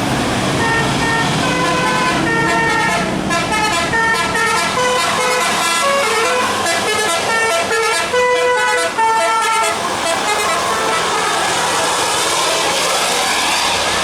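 Tour bus's musical 'telolet' air horn playing a quick tune of short notes at changing pitches, over the noise of the vehicle. The horn stops about ten seconds in, leaving the vehicle noise.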